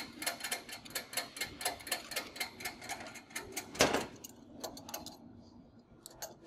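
Ratchet wrench clicking quickly and evenly while the jam nut on a conveyor belt cleaner's spring tensioner is locked. About four seconds in there is a single louder knock, and the clicking stops.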